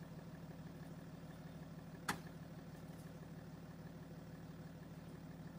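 BMW 335d's twin-turbo 3.0-litre straight-six diesel idling steadily, warming up on fresh oil. A single sharp click sounds about two seconds in.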